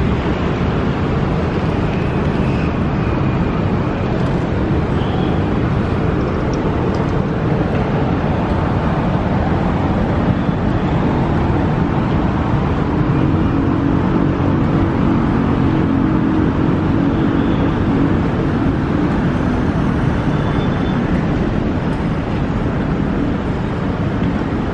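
Steady road traffic noise with car engines running, and a low engine hum standing out for several seconds in the middle.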